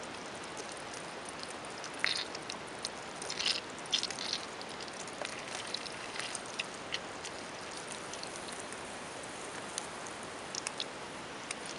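Sliced sausage frying in hot fat in a small steel camp pan on a campfire: a steady sizzle with scattered sharp pops and crackles, most of them in the first half as the slices go in.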